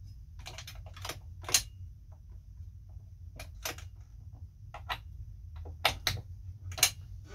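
Irregular sharp clicks and taps of metal and plastic parts being handled inside the top of a Kenmore 158-series sewing machine while a drop-in pattern cam is changed, about ten in all, the loudest about a second and a half in and three more close together near the end.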